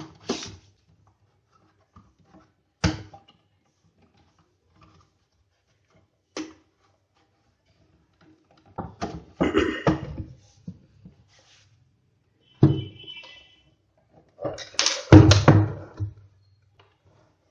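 The plastic case of an Intex computer UPS being closed up and handled on a wooden table, with separate knocks and clicks. A longer clatter comes about nine seconds in, and the loudest knocks come near the end, as the unit is turned over.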